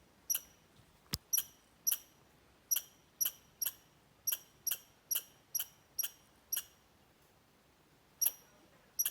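Red squirrel giving its alarm call: a series of short, sharp, high-pitched chirps, about two a second. The calls pause for a second or so near the end, then start again.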